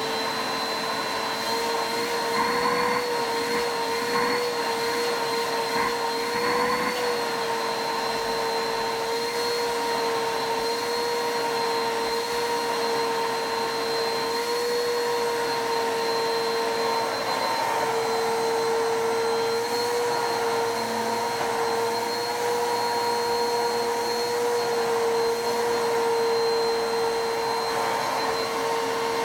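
Bissell vacuum cleaner motor running steadily with a constant high whine during a suction test.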